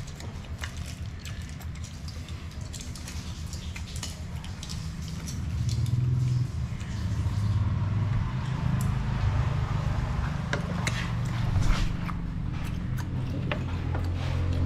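A low engine rumble that grows louder about five seconds in, with scattered clicks and knocks.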